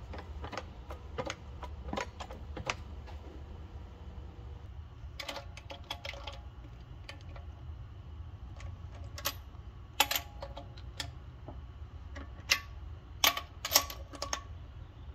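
Irregular metallic clicks and clinks of a socket and breaker bar working on a car wheel's lug nuts as they are cracked loose, with a few sharper ringing clinks about midway and near the end over a steady low hum.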